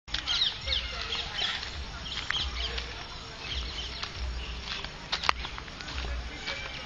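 Small birds chirping in many short rising and falling calls, over low rumbles of handling noise on the moving phone's microphone at irregular intervals, with one sharp click about five seconds in.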